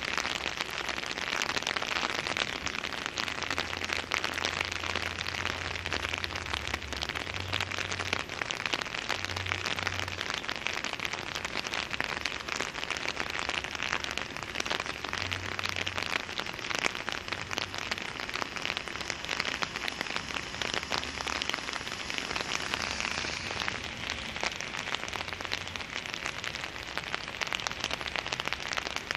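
Steady rain, its drops pattering in a dense crackle close to the microphone. A low rumble comes and goes in the first half.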